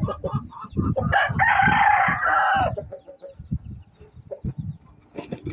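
Aseel rooster crowing once, a short crow of about a second and a half starting about a second in, preceded by low clucks in quick succession; scattered short knocks follow.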